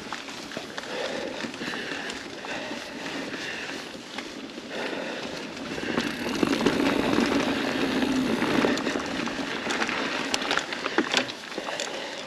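Mountain bike rolling along a dirt singletrack trail: a continuous noise of tyres on packed dirt and dry leaves, louder from about halfway through, with a few sharp clicks from the bike near the end.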